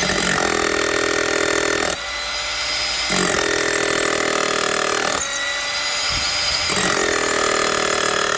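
Bosch GBH 18V-34 CF cordless hammer drill running and drilling into concrete. The motor whines steadily, while the heavier drilling sound comes and goes in three spells of about two seconds each as the bit is worked into the hole.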